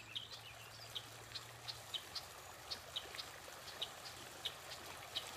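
Bicycle tyres running through shallow floodwater, a faint hiss of spray that grows as the bike comes closer, with short high chirps about twice a second from a small animal in the woods.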